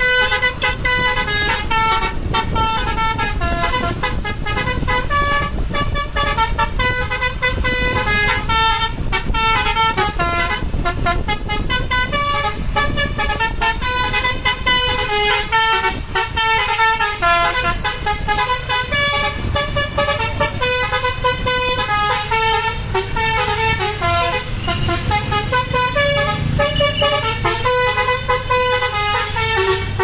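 Tour bus 'telolet basuri' multi-tone air horn playing a quick melody, one held note after another, over the low rumble of the bus's engine.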